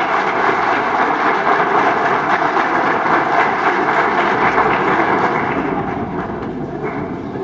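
Crowd applauding and cheering, a dense steady clatter of many hands that starts to die down about six seconds in.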